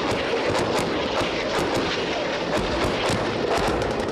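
Shells or bombs exploding in the sea during a live-fire bombardment: a steady rumble broken by sharp cracks and booms about twice a second.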